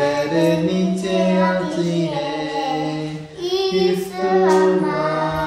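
A young girl singing a Hindi children's song, holding long drawn-out notes, with a short break about three seconds in.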